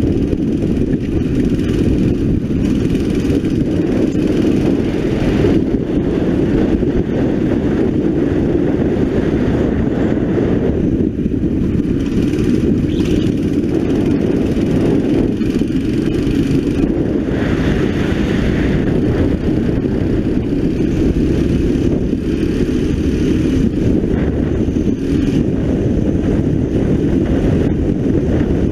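A 9 hp kart engine heard close up from an onboard camera, running hard through a lap. It holds steady through the corners and picks up speed onto a straight near the end.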